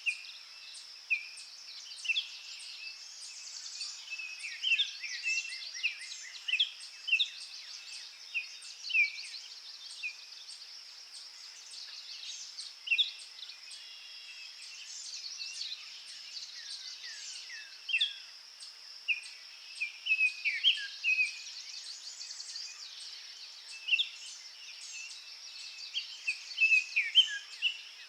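Small garden songbirds calling: many short, sharp chirps and downward-sliding calls scattered irregularly throughout, over a steady high-pitched background hiss.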